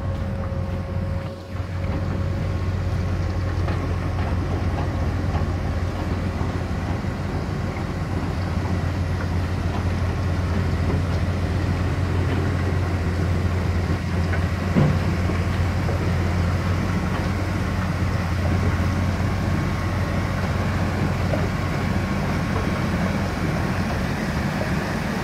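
Heavy dredging-plant machinery running steadily: a continuous low drone with a faint high whine over it, and one short knock about fifteen seconds in.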